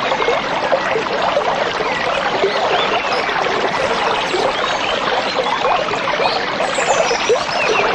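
Shallow stream babbling steadily over stones, a constant rush of water dense with small gurgles and splashes.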